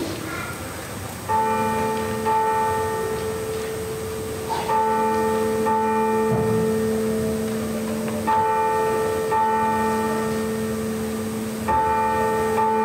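A single church bell tolling, struck in pairs about a second apart with a few seconds between pairs, each stroke ringing on into the next: the bell marking the start of the worship service.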